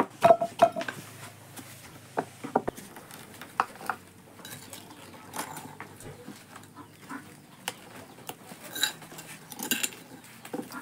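Kitchen utensils clinking and knocking against dishes, a scattering of sharp irregular taps, the loudest cluster in the first second.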